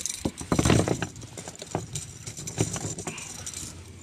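Metal clip-chain fish stringer clinking and rattling as a trout is handled and hung on it, a quick irregular run of sharp metallic clicks and knocks.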